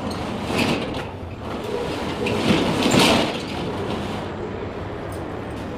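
Corrugated metal roller shutter rattling and clattering, loudest about three seconds in, then easing to a steadier, duller rumble after about four seconds.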